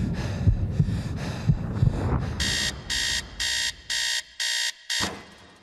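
Electronic sound design: a low thudding pulse at about two beats a second, then six evenly spaced high electronic beeps, about two a second, after which the sound fades out.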